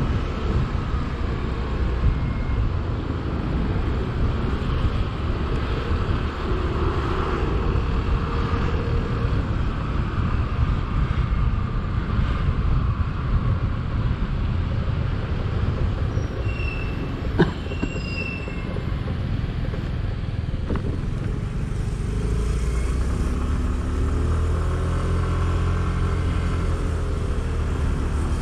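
Yamaha NEO scooter being ridden in traffic: steady engine and road noise with rushing wind. There is a sharp click about 17 seconds in, and near the end the engine pitch rises and falls.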